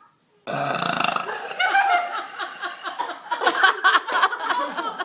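Loud, drawn-out human burping that begins about half a second in and goes on in rough pulses.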